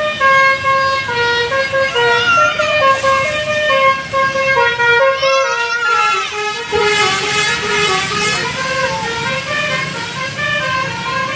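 Basuri 'telolet' musical air horn on a tour bus playing a tune of short held notes that step up and down in pitch, with a wavering, gliding passage about halfway through before the stepped notes resume.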